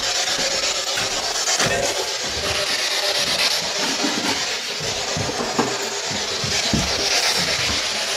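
Puffy jacket fabric rubbing and rustling against the handheld camera's microphone, a continuous scratchy rustle with small irregular knocks from handling.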